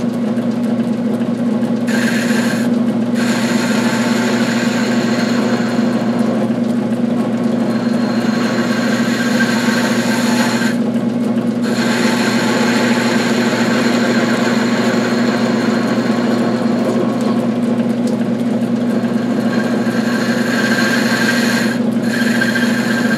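Metal-turning lathe running steadily with a low motor and belt-drive hum while the tool cuts a small model-engine flywheel to size, a high scraping hiss of the cut over it. The cutting hiss breaks off briefly three times as the tool comes out between passes.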